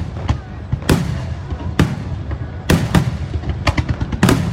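Aerial firework shells bursting: a run of sharp bangs about a second apart, each trailing off in a rumbling echo, with smaller pops in between.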